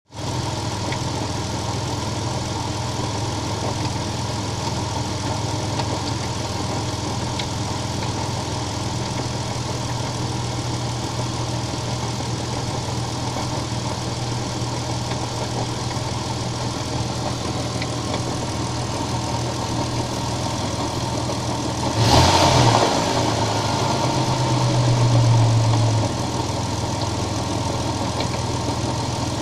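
Nissan VG20E V6 engine in a Cedric Y33 idling steadily with a knock in the engine. Near the end it is revved twice, first a quick blip, then a rev held for about two seconds, before it drops back to idle.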